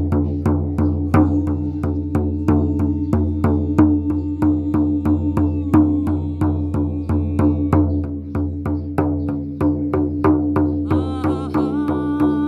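Shamanic frame drum beaten in a steady pulse of about three beats a second over a sustained drone tone. A higher ringing tone with several overtones joins near the end.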